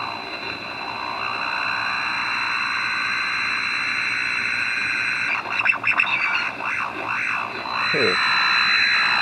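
AM radio receiver picking up radio-frequency noise from a MOSFET switching circuit driven by an NE555 timer: a steady hissing whine with a thin high tone over it, and slow sweeping tones rising and falling. The noise shifts as the circuit's capacitor charges and dumps through a neon bulb and the underdriven timer flips between modes. It turns crackly and choppy about five to six and a half seconds in, and a quick falling tone comes near the end.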